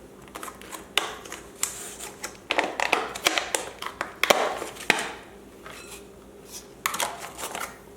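Kitchen food-prep handling: irregular light knocks, clicks and rustles as vegetables and their packaging are handled at the counter, busiest in the middle.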